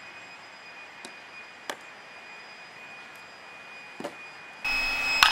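Softball field ambience: a steady background hiss with a faint high whine and a few faint sharp knocks. Near the end the background suddenly gets louder, and one sharp, loud crack follows.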